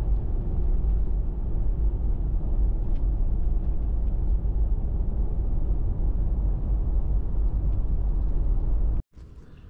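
Steady low road and engine rumble inside the cabin of a Toyota Prado driving at speed with a boat trailer in tow. It cuts off abruptly about nine seconds in, leaving a much quieter outdoor background.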